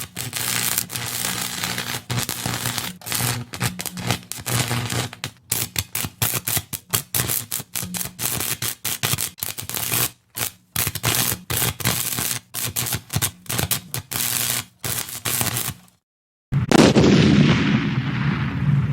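Sound effect of rapid, irregular automatic gunfire, a long run of sharp cracks over a low hum, cutting off suddenly. After a short silence comes a loud blast-like rush whose hiss fades away.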